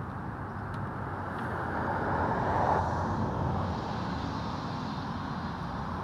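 Road traffic noise from a nearby highway, one vehicle passing that swells to its loudest about two and a half seconds in and then fades.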